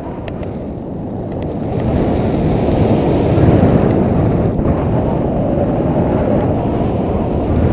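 Airflow buffeting a foot-mounted GoPro Hero2 on a paraglider in flight: a heavy, low wind rumble that grows louder about two seconds in.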